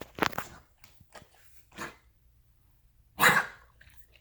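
Dog coughing in a fit: a quick run of hacking coughs at the start, two softer coughs, then one loud cough a little after three seconds in.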